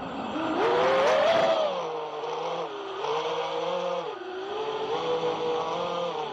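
Emax Hawk 5 FPV quadcopter's brushless motors and propellers whining in flight, picked up close by its onboard camera. The pitch climbs to its highest and loudest about a second in, then steps up and down several times as the throttle changes.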